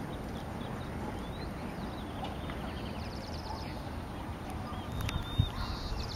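Outdoor paddock ambience: a steady low background rumble with small birds chirping and trilling faintly, and one soft thud a little after five seconds in.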